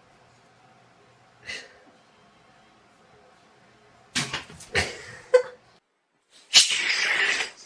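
Sounds from a cat: a brief one about a second and a half in, a run of sharp noisy bursts about four seconds in, then, after a sudden drop-out, a loud harsh noise lasting about a second.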